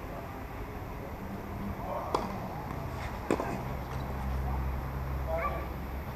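Tennis ball struck during a rally on a clay court: two sharp pops about a second apart, the second the louder, over a low steady hum.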